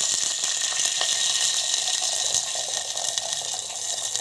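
Water poured in a steady stream into an aluminium pot, splashing onto ghee-fried coconut, cashews and whole spices.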